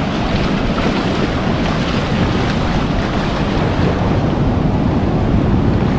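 Ocean surf washing in over shallow sand, a steady rushing with a heavy low rumble. Wind buffets the microphone.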